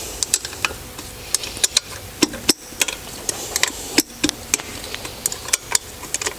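A hand tool working the bolts of a car's intake manifold: scattered sharp metallic clicks and clinks, irregular, sometimes in quick little clusters.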